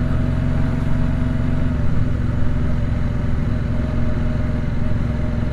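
Triumph Speedmaster's 1200 cc parallel-twin engine running at a steady cruise, its note even throughout.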